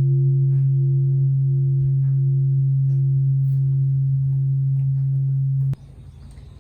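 Large Japanese temple bell (bonshō) humming long and steady after a strike, a deep tone with a fainter higher one above it. It cuts off suddenly near the end, leaving only faint background.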